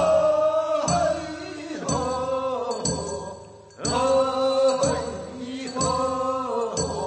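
Korean funeral bier-carriers' song (sangyeo-sori) of Gyeongsang province: a voice sings short phrases of long, wavering held notes, with a sharp stroke about once a second.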